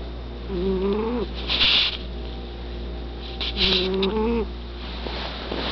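Cat snoring: two breaths about three seconds apart, each a short buzzing snore with a breathy hiss.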